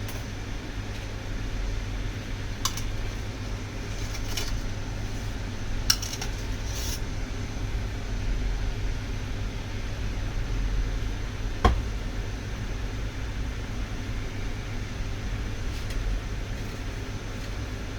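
A steady low mechanical hum with a few light clicks and taps scattered through it, the sharpest about two-thirds of the way in.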